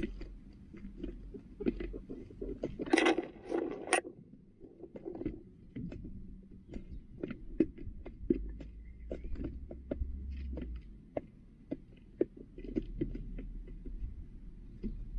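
Hens pecking feed from a plastic poultry feeder's tray: a run of sharp, irregular taps and clicks of beaks on plastic and grain, with a louder rustling scuffle about three seconds in.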